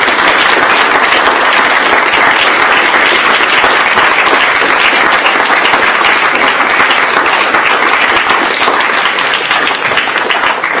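An audience applauding: a steady, loud round of many hands clapping.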